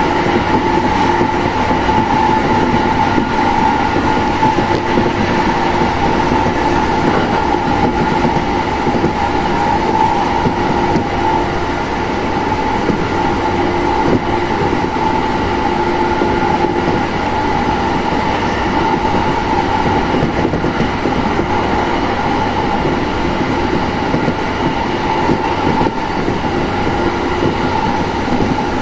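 Inside a JR Sobu Line Rapid commuter train running at speed between stations: a steady rumble of wheels on rail, with a steady whine running through it.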